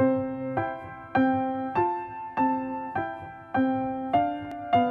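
Background piano music: a slow, even run of chords, a new one struck about every 0.6 seconds, each ringing on and fading before the next.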